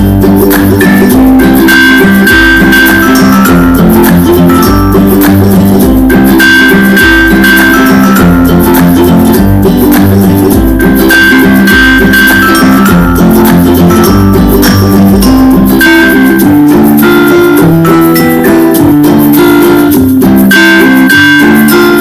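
Background music: a loud instrumental led by plucked guitar, with a repeating melody over a steady bass pattern.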